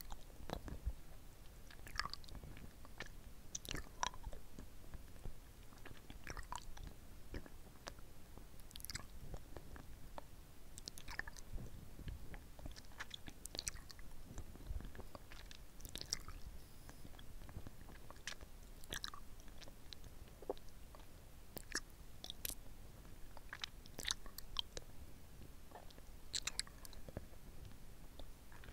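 Close-miked mouth sounds of sucking and licking a hard-candy lollipop: irregular small clicks and smacks of lips and tongue, a few every second.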